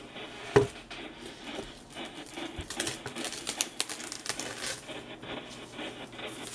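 Rustling and crinkling of a thin printed wrapping sleeve as a small radio is unwrapped by hand, with one sharp knock about half a second in and denser crinkling in the middle.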